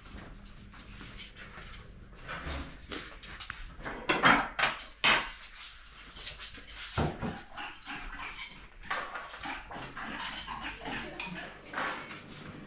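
Crockery and cutlery clinking and clattering in irregular short strokes, with a few louder knocks, as plates and utensils are handled.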